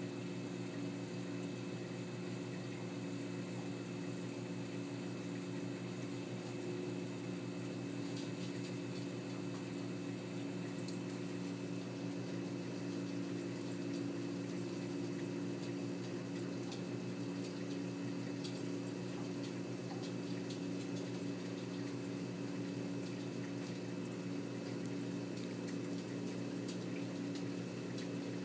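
Saltwater reef aquarium's water pump running: a steady hum with water flowing and trickling underneath.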